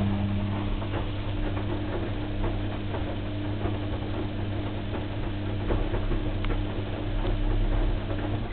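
Washing machine running: a steady motor hum with many light ticks and patters over it. The hum stops just before the end.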